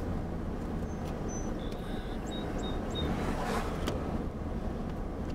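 Steady engine and road noise heard from inside a moving car's cabin, with a few short high-pitched chirps about two seconds in.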